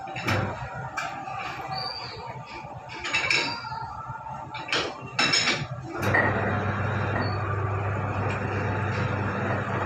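Metal clinks and clanks as a wrench and a steel bar work the top adjusting screw of a three-roll pipe bending machine. About six seconds in, the machine's motor starts and runs with a steady hum.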